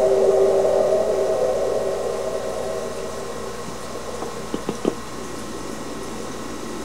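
One of the reported 2011 'strange sounds': a loud drone made of several steady tones held together, fading away over about three seconds into a steady hiss. A few short sharp knocks come just before five seconds in.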